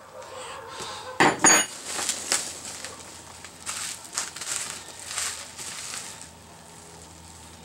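Unpacking a box of machine parts: two sharp metallic clinks a fraction of a second apart, about a second in, with a short high ring, then intermittent rustling of packing material.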